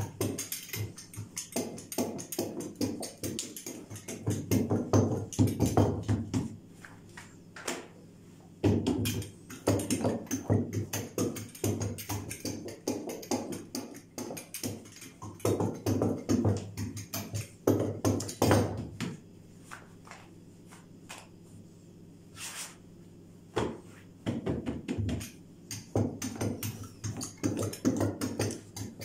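A small handled roller rolled back and forth over thin dough on a silicone mat: spells of quick rattling clicks with short pauses between strokes, as the flatbread dough is spread out thin.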